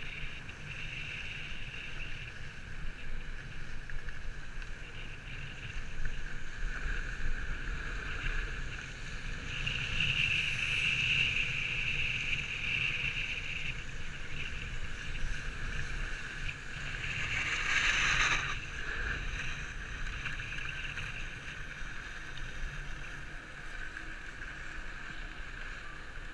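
Snowboard sliding and carving on groomed snow, a steady scraping hiss with wind on the microphone, and a louder edge scrape about eighteen seconds in.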